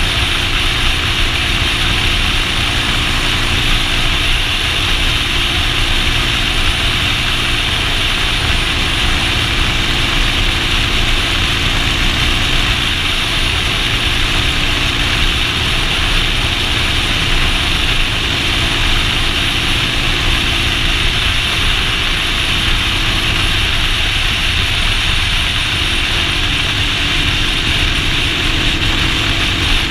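Motorcycle engine running at road speed, its pitch shifting a few times, under steady wind rush on a GoPro microphone.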